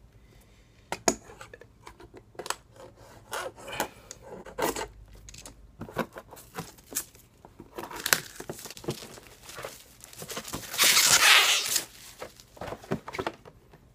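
A cardboard model-kit box being opened by hand: a box cutter scratching and slitting its packaging, then fingers scraping, crinkling and peeling at it, in a run of irregular clicks and scrapes. A longer, louder tearing sound comes about eleven seconds in.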